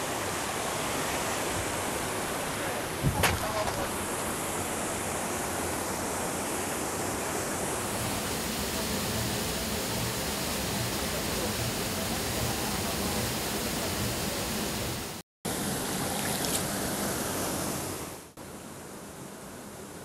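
Gumawang waterfall, about 25 m high, plunging into its pool: a steady rush of water. A single sharp knock comes about three seconds in. The sound cuts out for a moment near 15 seconds and is quieter after about 18 seconds.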